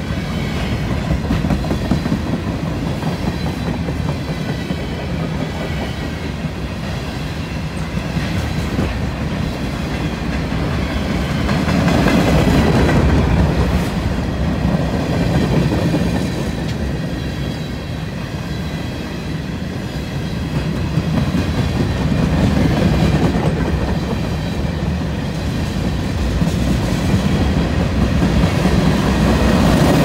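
Freight train of tank cars and covered hoppers rolling past close by: a steady rumble of steel wheels on rail with clickety-clack over the rail joints, swelling and easing in loudness a few times.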